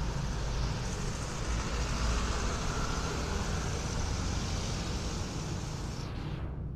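Steady rumble and hiss of road-vehicle noise; the higher hiss drops away near the end.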